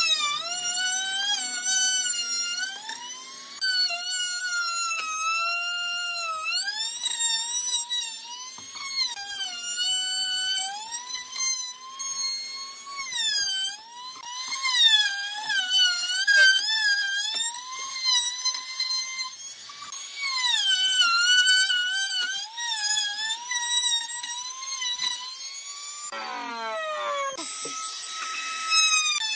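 Handheld trim router cutting pine, a high-pitched motor whine whose pitch sags and recovers as the bit bites into the wood and eases off. Near the end the whine drops away in a falling glide as the router is switched off and winds down, then a steady tone starts again.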